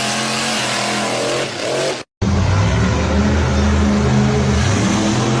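Monster truck engine revving, its pitch rising and falling, cut off abruptly about two seconds in; after a brief silence, another monster truck engine runs loud and deep, its pitch wavering as the throttle is worked.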